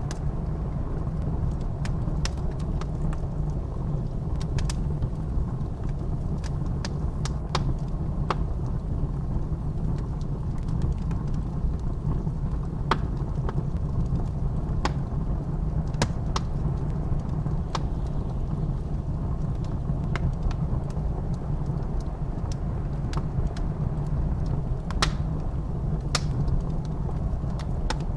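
Wood fire crackling with irregular sharp pops, over a steady low rumble of blizzard wind.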